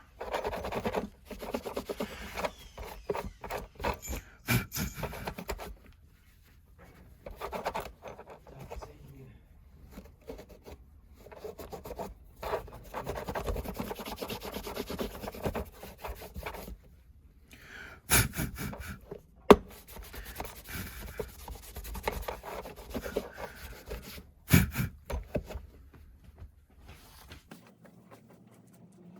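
Irregular rubbing and scraping strokes on hard plastic, coming in bursts with short pauses, with a few sharp clicks past the middle.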